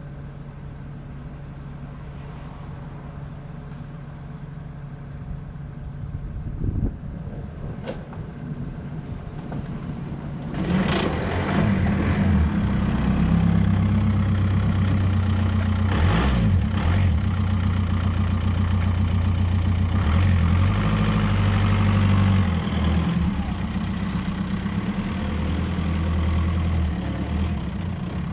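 A vehicle engine idling steadily, quieter at first and then louder and fuller from about ten seconds in.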